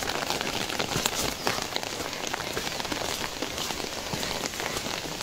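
Rain falling steadily, a dense, irregular patter of many small drops.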